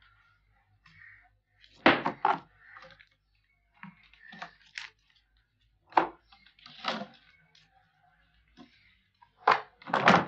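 Hard-shell briefcase being handled: sharp clicks and knocks from its lid and metal latches, with soft rustling of banknotes between them. The loudest knocks come near the end as the lid is brought down.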